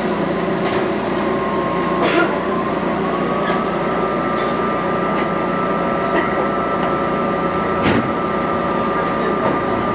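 Subway train running as it pulls away from a station, heard from inside the car: a steady electric motor whine that rises in pitch about two to three seconds in, then holds, over a constant rumble, with a couple of sharp clacks.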